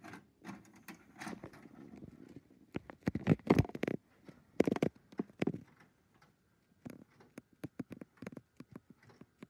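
A VHS cassette being loaded into a VCR: a run of plastic clicks and clunks, heaviest about three to five seconds in.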